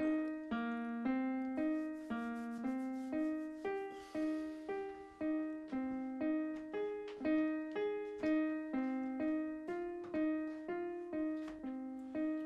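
Piano music: a repeating pattern of single struck notes, about two a second, each ringing and fading before the next.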